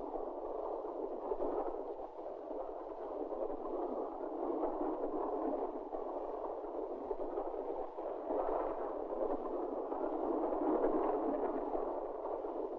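Steady running noise of a moving train, thin and without deep bass, as carried on an early sound-film soundtrack.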